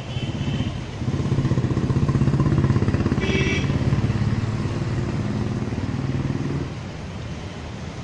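A motor vehicle's engine running close by, louder from about a second in and dropping away sharply near the end, over the steady hiss of fountain jets. A brief high-pitched tone sounds about three seconds in.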